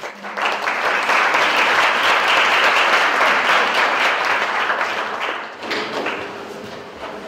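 Audience applauding. It swells within the first second, holds steady, then dies away near the end.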